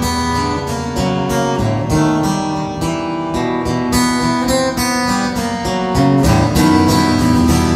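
Acoustic guitar strummed in a steady rhythm, playing chords through an instrumental passage of a song.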